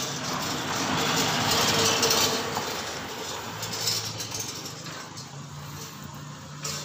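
A motor vehicle passing on the road, its noise swelling to a peak over the first two seconds and then fading, with a low engine hum continuing afterwards.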